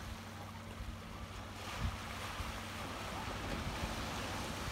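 Small waves washing onto a sandy beach, with wind on the microphone; the wash grows louder about two seconds in. A faint steady low hum runs underneath.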